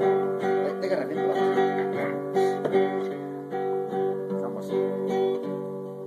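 Classical guitar strummed in a steady rhythm, playing an instrumental break with no singing.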